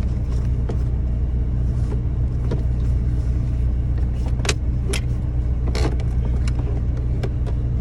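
Steady low hum of a running vehicle engine, with a few sharp clicks of plastic console parts and wiring connectors being handled.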